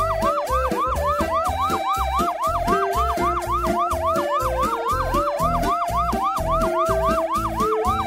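Background music with a pulsing bass beat, overlaid by a fast siren-like yelp that rises and falls about four times a second.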